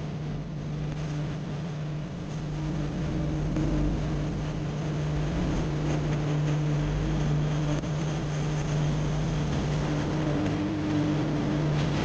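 Steady drone of a car's engine and road rumble heard from inside the cabin while driving.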